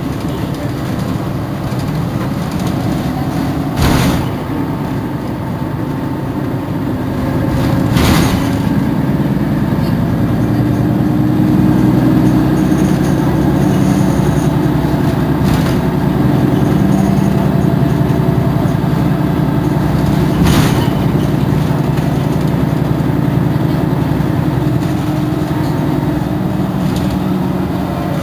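Mercedes-Benz Citaro G C2 articulated bus idling while stopped: a steady low engine drone that grows a little louder about eight seconds in. Several short, sharp noises break over it, the loudest about four and eight seconds in.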